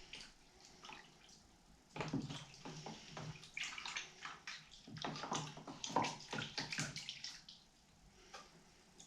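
Laundry detergent poured from cups into shallow water in an oil drain tub, splashing and sloshing from about two seconds in until near the end.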